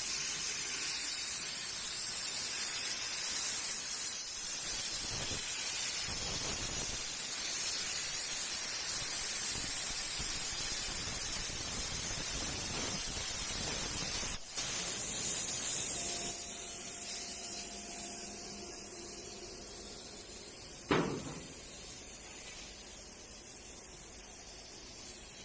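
CNC plasma cutting torch cutting metal: a steady hiss. About halfway through there is a sharp click and the hiss grows louder, then it slowly dies away, with a brief sharp sound near the end.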